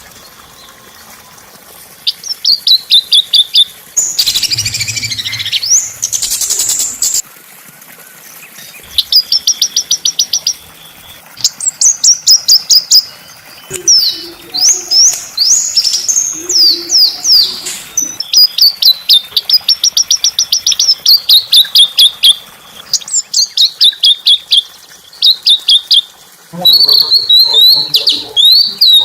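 Small songbird singing: fast series of high, sharp chirps in runs of a second or two, with short pauses between, and a brief rushing noise about four seconds in.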